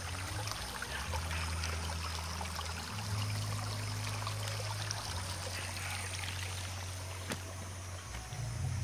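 Shallow, rocky mountain creek running low on water, trickling and babbling over stones, with a steady low hum underneath and a single sharp click about seven seconds in.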